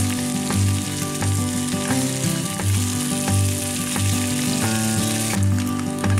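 Sausage strips sizzling in a hot frying pan, easing off about five seconds in. Background music with a repeating bass line plays underneath.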